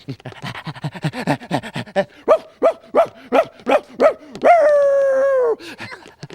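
A performer's voice imitating a dog: quick panting, then a string of about eight short yaps, then one long howl that drops in pitch at the end.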